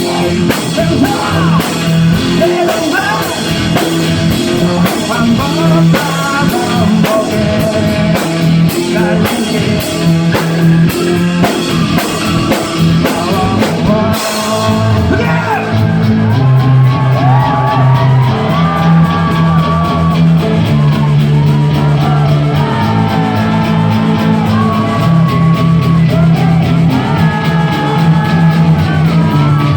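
Live rock band with a male lead singer performing in a club hall. About halfway through, the cymbal-heavy drumming drops back and the bass and voice carry on.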